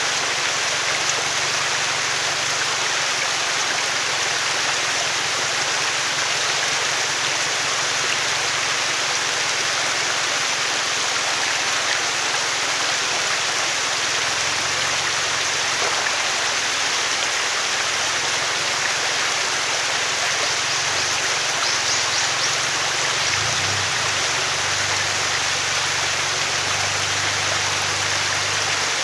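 Mountain stream rushing steadily over rocks. Under it runs the low hum of a lifted Toyota Hilux Surf's engine as the truck crawls over the boulders, swelling briefly about three quarters of the way through.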